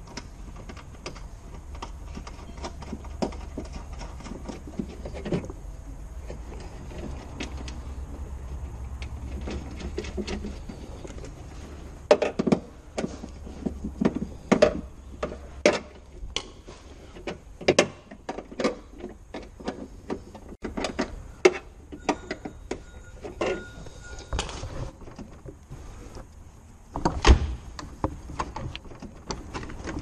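Scattered clicks and knocks of hands working on the outside door handle and its linkage inside a Nissan Micra K11's rear door shell. A low steady rumble fills the first half, and one heavy thump comes near the end.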